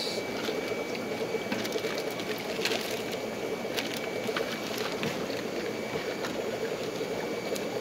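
Steady hum and water noise of a fish room's aquarium filters and aeration, with scattered light clicks and a thin steady high whine underneath.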